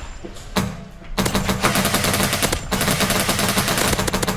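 Airsoft rifles firing: a single shot about half a second in, then rapid automatic fire from about a second in, the shots coming in quick strings.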